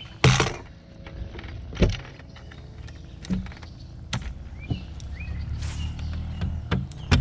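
A string of hard knocks and thumps from a bass boat's livewell and deck as a largemouth bass is handled and lifted out to be weighed, the loudest just after the start. A low steady hum comes in and grows from a little past halfway.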